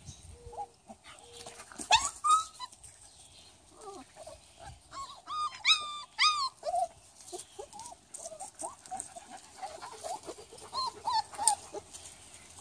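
German Shepherd puppies yelping and whimpering in play, in short high-pitched arching squeals. A pair comes about two seconds in, a quick run of four or five around the middle, and fainter ones near the end.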